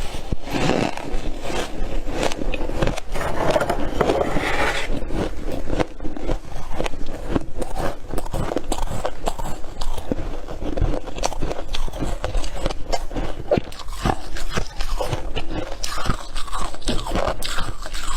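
Freezer frost being bitten and chewed close to the microphone: a continuous run of dense crunching and squeaky crackles with no pauses.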